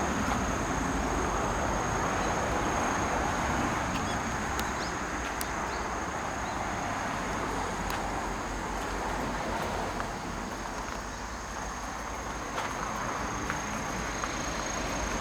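Steady outdoor background noise with a continuous high-pitched insect trill running through it, and a few faint ticks.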